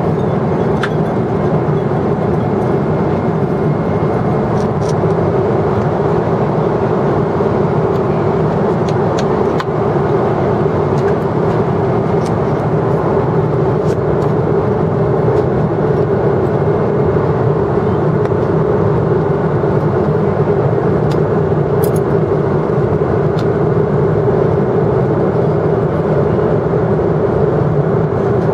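Steady cabin noise of a Boeing 777-300ER airliner in cruise: a constant, loud rush of airflow and engine noise. A few faint clicks sound through it.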